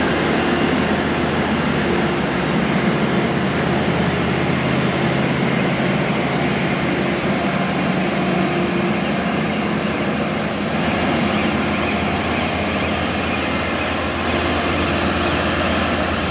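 Heavy diesel engine of a Cometto self-propelled box-girder carrier running steadily at a constant pitch.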